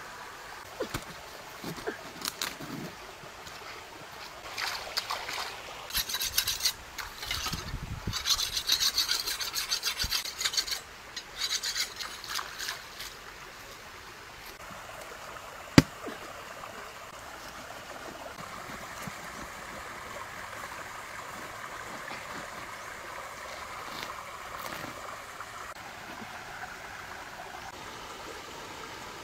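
Scraping and rasping of a whole jackfruit's rough rind as it is handled and worked with a large knife, in bursts during the first half. Then the steady flow of a shallow creek over stones, with one sharp click in the middle.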